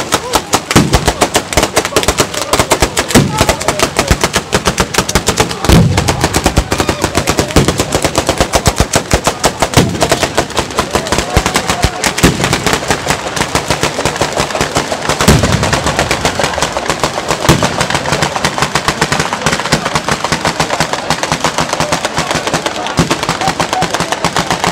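Batteria bolognese ground firework display: a dense, rapid crackle of firecrackers going off one after another without a break, with heavier bangs every few seconds.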